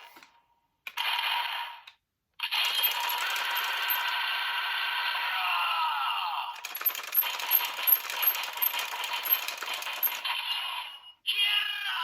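Electronic sound effects from a DX Geartlinger transformation toy, played through its small speaker as a Zenkaiger gear is used in it: a short burst about a second in, then a long run of synthesized tones with falling glides that turns into fast, bright, jingling clicks.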